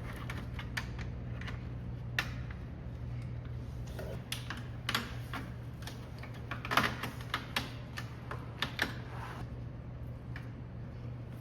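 Hard plastic clicking and tapping as a replacement kidney grille is lined up and pressed into a BMW G20's front bumper: irregular sharp clicks, bunched most thickly a little past the middle, over a steady low hum.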